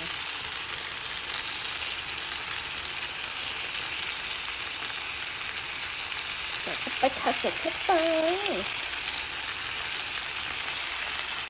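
Shrimp, fish, vegetables and glass noodles sizzling steadily in a frying pan as they stir-fry.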